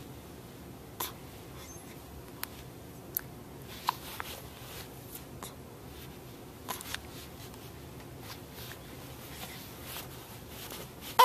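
Baby hiccuping: a short, sudden hic roughly every three seconds over a quiet room hum, the last one near the end the loudest.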